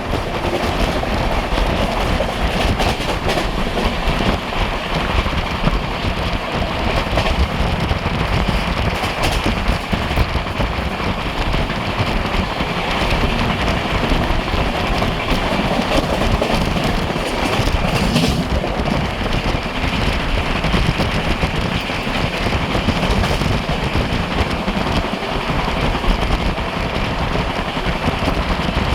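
Express train running at high speed: a loud, steady rush of wheel and track noise with no let-up.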